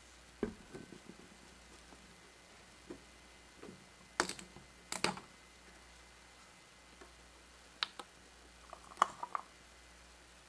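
Light plastic clicks and knocks of a water bottle, its screw cap and plastic cups being handled on a tabletop. The sharpest two come about four and five seconds in.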